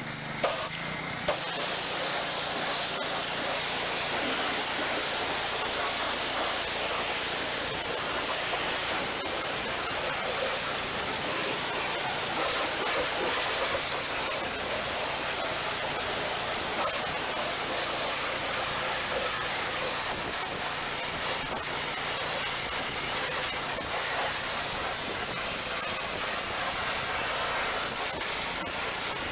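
A steady spraying hiss from a nozzle used in cleaning a truck's engine bay, with two sharp clicks about half a second and a second in.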